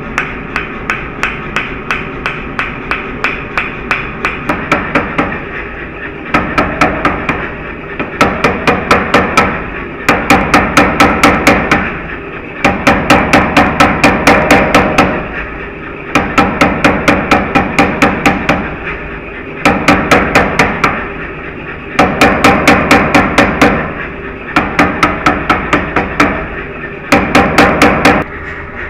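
Power hammer hammering a glowing steel billet: runs of rapid, evenly spaced blows about five a second, each run lasting one to three seconds, with short pauses between. A steady machine hum from the running hammer continues under the blows.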